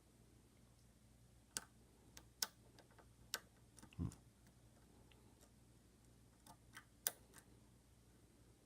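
Faint, irregular clicks of a steel hook pick working the pin stacks inside a Kwikset deadbolt cylinder under tension, with one duller low knock about four seconds in.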